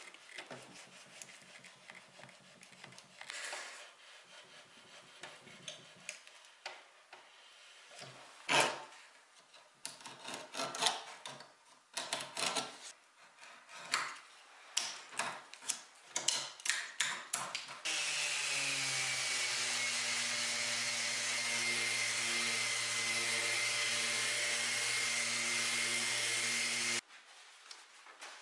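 Sharp scraping and cutting strokes of a hand blade trimming wood veneer edge banding. About eighteen seconds in, a power tool starts running steadily with a high whine for about nine seconds, then cuts off suddenly.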